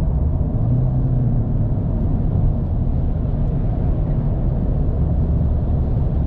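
Steady in-cabin road noise of a car at highway speed: a low, constant rumble of tyres and engine.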